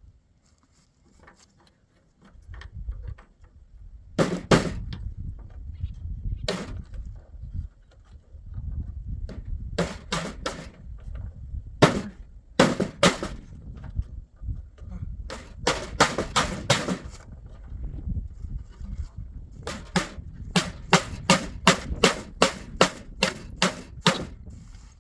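Hammer blows during a door repair: scattered strikes at first, then a steady run of about two strikes a second near the end, over a low rumble.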